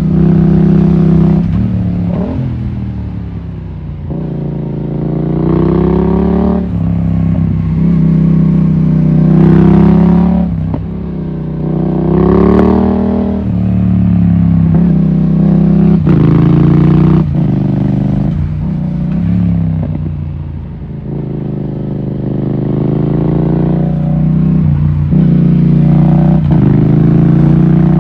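Yamaha MT-07 parallel-twin engine under way, revs rising and falling again and again, with brief sharp dips in the note every few seconds.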